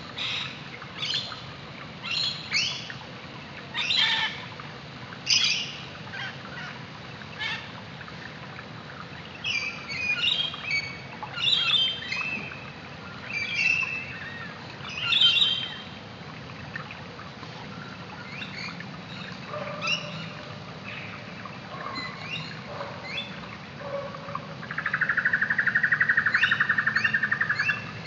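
Wild birds calling: a run of short, sharp calls about once a second, then a busier stretch of chirping. Near the end a loud, rapidly pulsing buzz lasts about three seconds.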